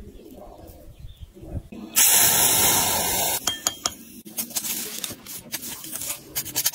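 A loud hiss lasting about a second and a half, starting about two seconds in, then a quick run of scraping strokes as a metal blade scrapes casting sand over a freshly poured silver shovel blade in its open sand mould.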